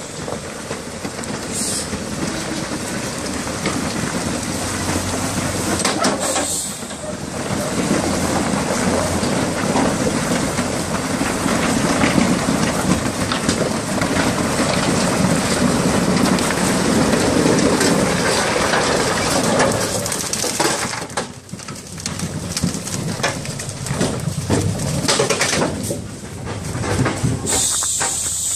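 Heavy diesel log trucks running under load, with the rumble and clatter of their wheels working over a rough gravel road.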